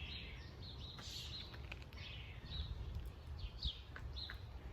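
Several birds chirping with short, quick calls, many of them falling in pitch, over a steady low outdoor rumble.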